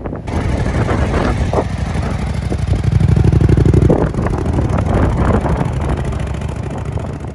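Suzuki V-Strom motorcycle engine revving while its rear wheel spins in soft sand, the bike stuck. It is loudest for about a second, around three seconds in, then eases off.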